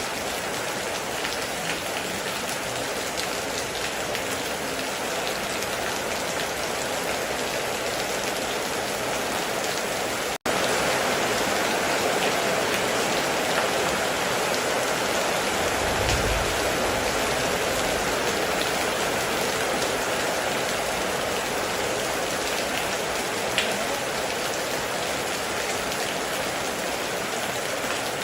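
Heavy rain falling steadily, an even hiss of many drops. There is a split-second gap about ten seconds in, after which the rain is a little louder, and a short low thump comes a few seconds later.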